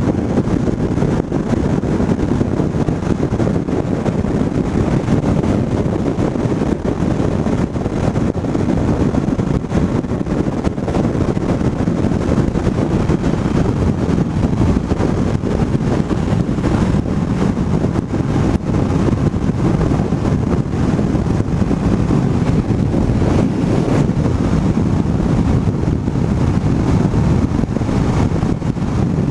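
Steady wind rush and road noise from a motorcycle cruising at highway speed, heavy in the low end.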